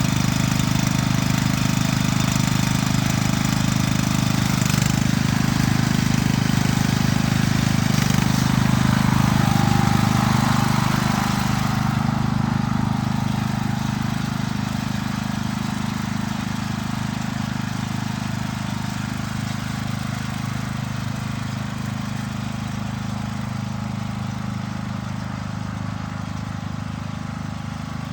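Small petrol lawn mower engine running steadily just after starting, getting gradually quieter from about halfway through.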